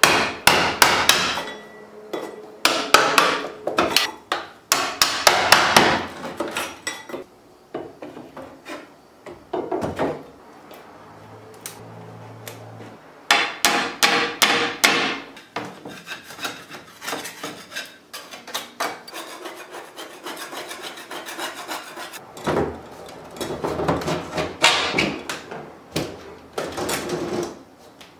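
Claw hammer striking a wide chisel and the wooden stop bead of an old double-hung window, prying the bead loose and backing its nails out. Several bursts of quick hammer blows come in turn with quieter spells.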